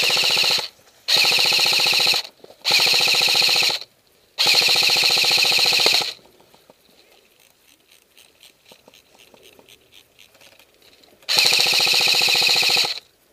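Airsoft rifle firing on full auto close by: five bursts of rapid shots, four in quick succession, then a last burst about five seconds later, with faint scattered ticks in the pause.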